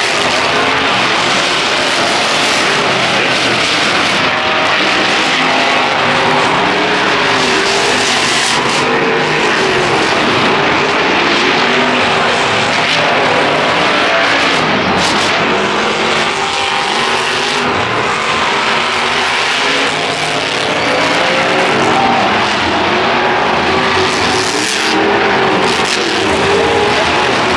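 Several monster trucks' engines running and revving at once, a loud continuous din with engine pitches wandering up and down.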